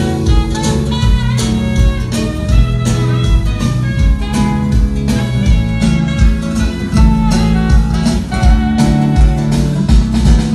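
Live band playing an instrumental passage: guitar lines over bass and a drum kit keeping a steady beat, with no singing.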